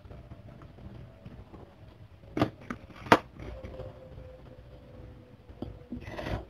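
A small lime being squeezed by hand over a bowl of soup. It is mostly quiet with a faint steady hum, broken by two sharp clicks about two and a half and three seconds in and a short rush of noise near the end.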